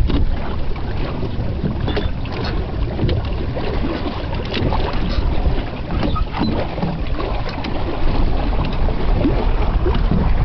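Hobie Cat 18 catamaran under sail: water rushing and splashing along the hulls, with a steady low rumble of wind on the microphone.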